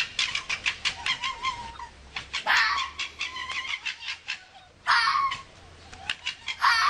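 Fox calling: a rapid stuttering chatter of short pulses, about seven a second, broken three times by a louder harsh cry.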